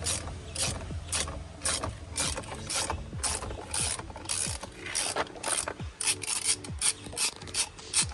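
Ratchet wrench clicking as it undoes the steering wheel's centre nut, in a steady run of quick click strokes about two or three a second.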